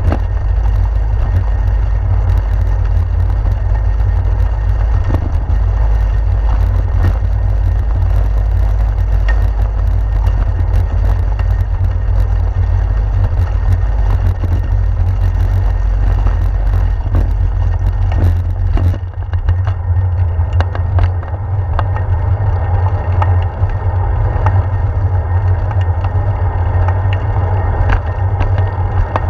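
Bicycle riding over a brick-paved street: low wind rumble on the handlebar-mounted camera with a constant rattle of small clicks from the bricks. About two-thirds of the way in the rattle thins out as the bike rolls onto smooth asphalt, leaving mostly the rumble.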